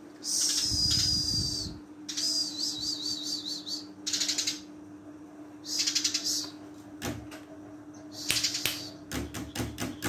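Eurasian tree sparrow chirping in short bursts, one of them a wavering trill. A quick run of sharp clicks comes near the end.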